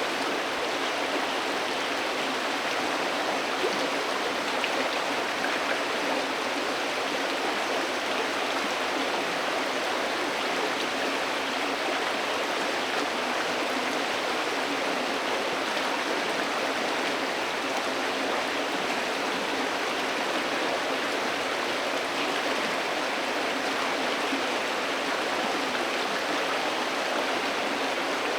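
River water flowing: a steady, even rush and babble of water with no breaks.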